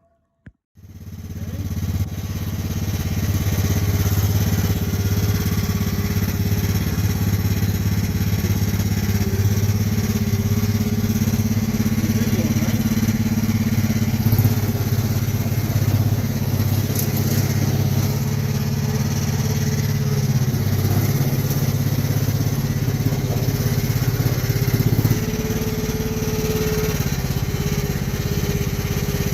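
Small engine of a homemade mini skid steer coming in about a second in and running steadily, easing down a little near the end.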